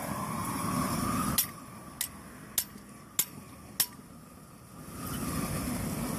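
Long-handled propane torch being lit: a steady rush at the start breaks off, then five sharp clicks come evenly spaced about half a second apart. From about five seconds in the lit flame runs with a steady rushing sound.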